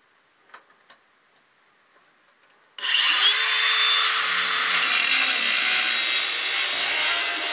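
A cordless angle grinder with a diamond blade starts up suddenly about three seconds in, its whine climbing as the blade spins up, then runs steadily as it cuts into the masonry wall beside a door frame. Before that, only a few faint handling clicks.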